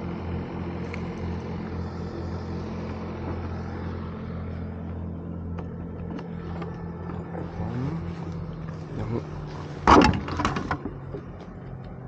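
A boat motor running at a steady drone, shifting in pitch and dying away after about eight seconds. About ten seconds in there is a loud, short clatter.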